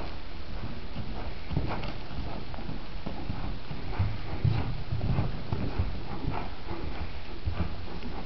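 A horse's hoofbeats on the soft dirt footing of an indoor arena as it trots: a run of dull, uneven thuds.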